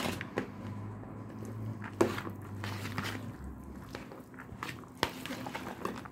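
Crab stick salad with rice, corn and mayonnaise being mixed by hand in a bowl: soft squishing with a few sharp clicks, the clearest about two seconds and five seconds in.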